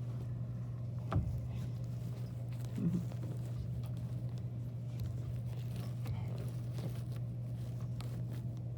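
Steady low hum, with a sharp click about a second in and a short soft knock near three seconds.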